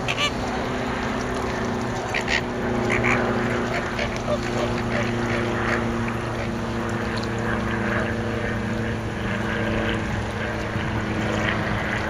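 A flock of greater flamingos calling with short, goose-like honks during their group courtship display. The calls cluster in the first six seconds and thin out after that, over a steady low hum.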